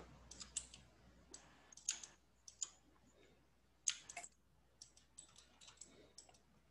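Faint, irregular clicks of a computer mouse and keyboard, some coming in quick clusters, over a low steady hum.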